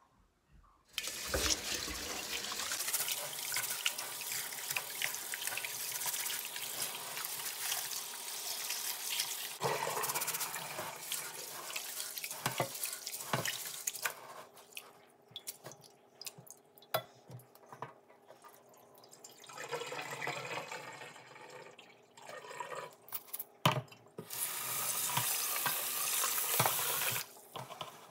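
Tap water running into a pot of rice in a stainless steel sink, then hands swishing and rubbing the rice in the water with small splashes and clicks; the tap runs again for a few seconds near the end. This is sushi rice being washed.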